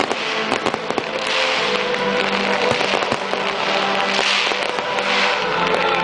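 Aerial fireworks going off in a dense run of cracks and crackles, with rising swells of hiss. Music with long held notes plays underneath.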